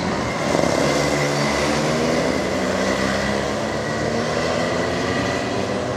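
Racing engine running hard, its pitch stepping and sliding up and down as the revs change.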